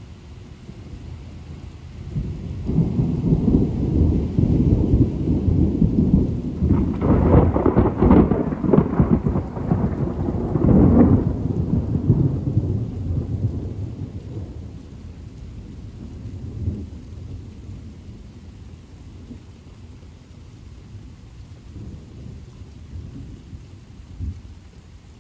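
A long roll of thunder over rain: a low rumble builds a few seconds in, swells to louder, sharper peals in the middle, then dies away to a distant rumble under the rain.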